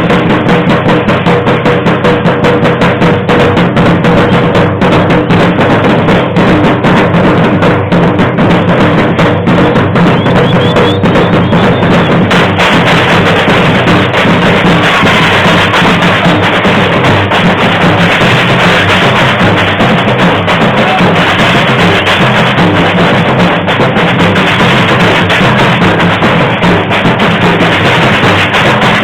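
Batucada samba percussion ensemble playing a loud, dense, steady groove, with deep bass drums under snare drums and other drums.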